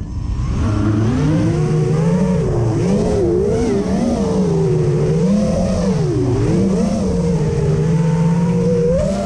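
FPV quadcopter's brushless motors and propellers whining, the pitch wavering up and down as the throttle changes.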